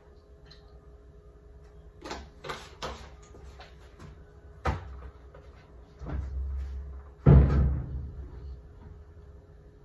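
Plastic clicks and knocks as laundry-product bottles and a top-loading washing machine are handled. About seven seconds in comes a heavier thump with a short ring, the machine's lid being shut.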